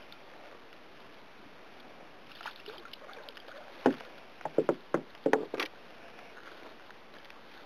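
Ocean Kayak Prowler 13 sit-on-top fishing kayak riding at anchor, with a faint steady hiss of water and air. About four seconds in comes a quick run of sharp knocks lasting about a second and a half, as the angler's hand or gear bumps the hull.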